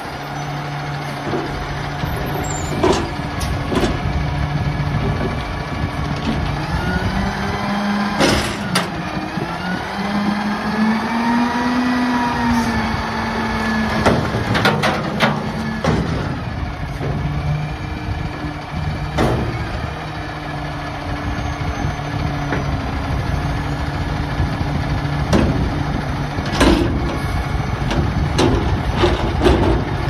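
Front-loading garbage truck's engine revving up to drive the hydraulics as its forks lift a steel dumpster over the cab and empty it, then lower it back. Sharp clangs of the container ring out about 8 s in, in a cluster around 14 to 16 s, and again around 19 s and 25 to 27 s.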